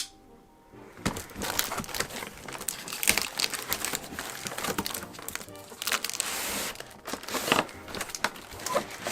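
Packaging being unwrapped from a boxed keyboard: irregular crinkling and rustling with small scrapes and knocks of handling, starting about a second in.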